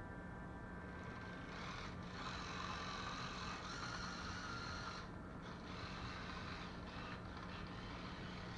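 Small tracked robot's electric gear motors whirring as it drives off, starting about a second and a half in. The whirring breaks off briefly about five seconds in, then resumes in short stretches.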